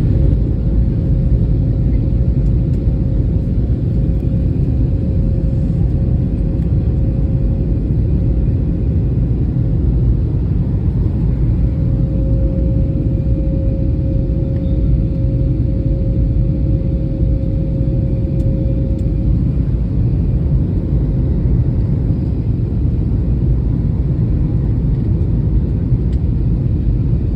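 Passenger airliner cabin noise: a steady low rumble of engines and airflow, with a faint high whine that fades out about two-thirds of the way through.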